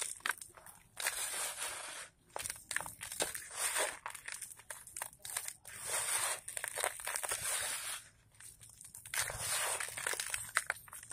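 Dry, gritty red sand and dirt squeezed and crumbled in bare hands, crunching and hissing as the clumps break and the grains trickle back down. It comes in repeated handfuls with brief pauses between them.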